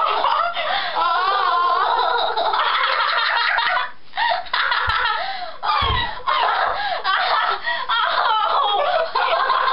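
Two girls in an uncontrollable laughing fit, giggling and shrieking with laughter almost without a break. Two dull thumps come about halfway through.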